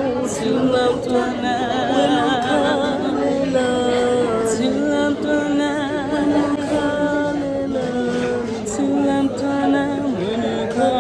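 Two women singing a cappella in harmony, holding long notes with vibrato and no accompaniment.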